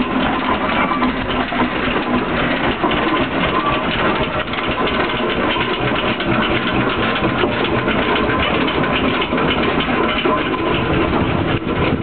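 Steam road engine rumbling steadily.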